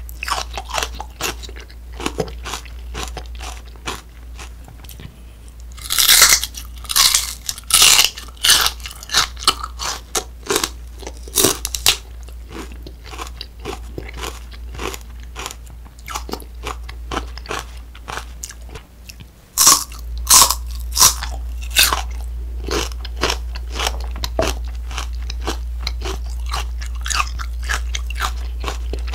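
Close-miked crisp crunching bites and chewing of a raw celery stick, with the loudest crunches about six seconds in and again about twenty seconds in. A low steady hum runs underneath.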